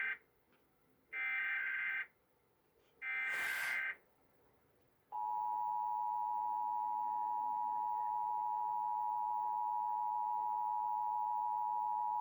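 Emergency Alert System SAME header: the tail of one short digital data burst, then two more of about a second each, a second apart, encoding a Required Monthly Test. About five seconds in, the steady two-tone EAS attention signal (853 and 960 Hz together) starts and holds.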